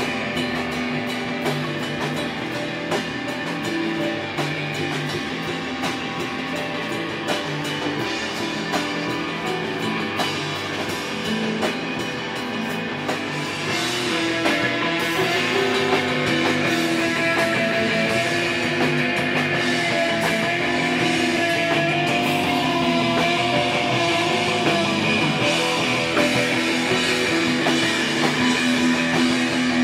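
Rock band playing, with electric guitar over a drum kit. The music gets louder about halfway through, where a held, wavering high note comes in.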